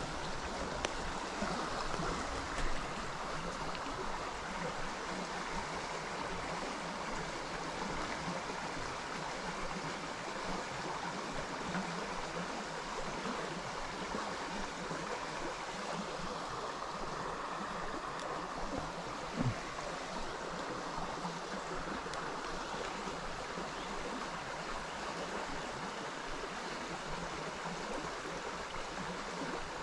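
Small stream flowing, a steady rush of water with a few brief knocks now and then.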